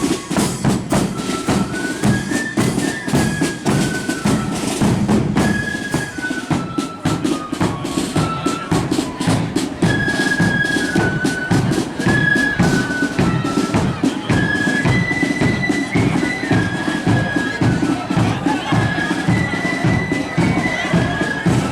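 Marching flute band playing: flutes carry a stepping melody over fast, continuous side-drum strokes and bass drum beats.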